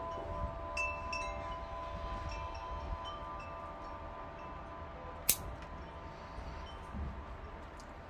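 Chimes ringing, several clear tones struck and overlapping as they slowly fade. About five seconds in, one sharp snip of bonsai pruning scissors.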